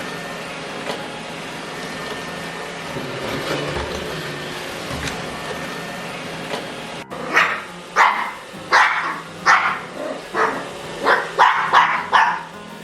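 Roomba J7 Plus robot vacuum running with a steady hum. About seven seconds in, a dog starts barking, a string of about nine barks, roughly one or two a second.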